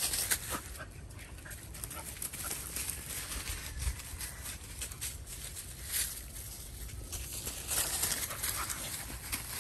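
Dog and otter moving over dry leaf litter: rustling and scuffling with scattered crackles of leaves, louder about eight seconds in as the dog closes on the otter.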